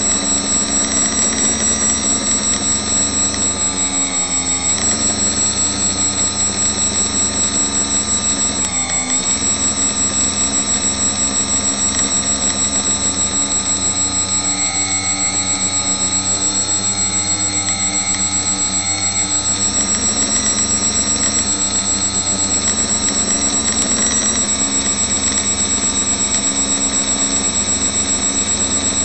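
Quadcopter's four Suppo 2212 1200kv brushless outrunner motors spinning 8x4.5 propellers in flight, heard through a camera fixed directly to the frame: a steady motor drone. Its pitch dips briefly about nine seconds in and sits lower for a few seconds around the middle, over a constant high whine.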